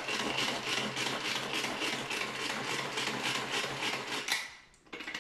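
Pull-cord manual food chopper worked by hand, its cord pulled out and rewinding about three times a second as the blades spin and chop mint and parsley leaves inside; the pulling stops about four seconds in.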